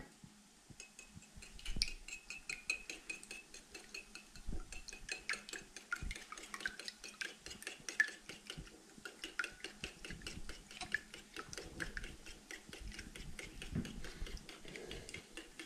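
A fork beating raw eggs with milk in a bowl: rapid, light clicking of the metal tines against the bowl, starting about a second in.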